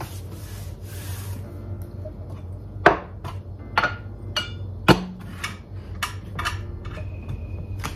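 Objects being handled and set down on a kitchen countertop: a string of sharp knocks and clacks, about ten of them, starting about three seconds in, over a low steady hum.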